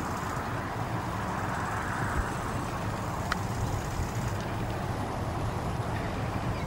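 Steady low rumbling background noise, with a single sharp click about three seconds in.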